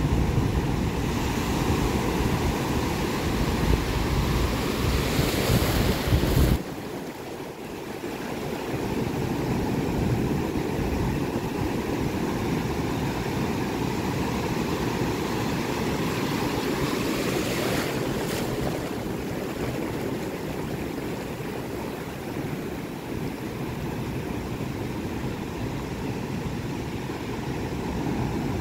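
Ocean surf breaking and washing up a beach: a steady rush of waves. A heavy low rumble lies over it for the first six seconds or so, then cuts off abruptly.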